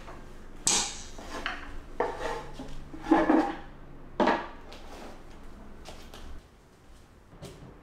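Folding wooden tray table being carried, opened and set down on the floor: a handful of separate knocks and clatters, with quieter handling noise between.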